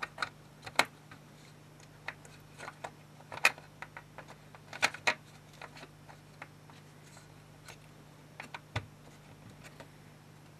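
Irregular sharp clicks and taps of small plastic and metal laptop parts being handled as a FireWire card is fitted into a ThinkPad T420's modem bay and its connector pressed home. The loudest clicks fall a little under a second, about three and a half, and about five seconds in, over a faint steady low hum.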